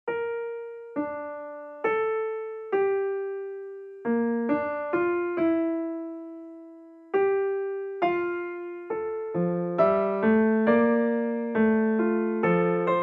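Background music: a slow piano piece that starts after a brief silence, playing single struck notes that fade, with lower chord notes joining from about nine seconds in.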